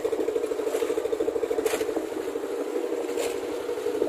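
Small boat engine running steadily with a fast, even chugging pulse. Two brief hisses come about a second and a half apart.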